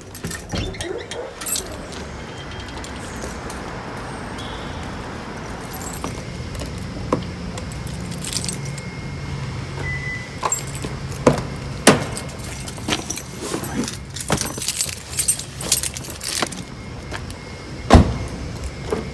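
Car keys and a key fob jangling and clinking in a hand, with rustling, while getting into a car. Near the end a car door shuts with a single loud thump.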